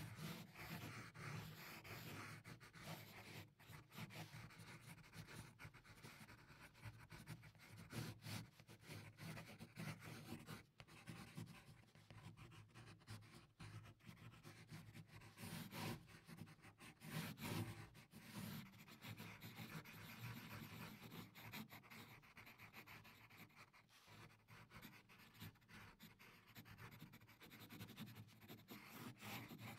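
Pencil drawing on paper: faint, continuous scratching of the lead across the paper in short, irregular strokes, with a brief pause about ten seconds in.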